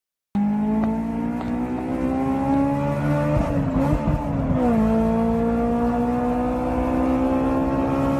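Racing engine held at high revs, starting abruptly. Its pitch creeps slowly upward, sags and wavers about halfway through, then settles back up.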